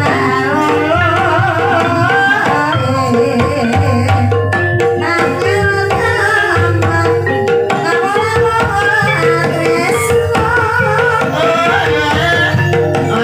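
Javanese gamelan accompaniment for an ebeg horse dance: hand drums played in a busy rhythm under sustained metallic tones, with a woman singing in a wavering, ornamented voice.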